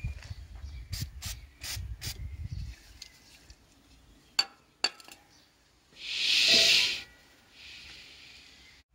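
Aerosol can of silicone spray hissing in one loud burst about six seconds in, then a fainter, shorter burst, after a few sharp clicks earlier on.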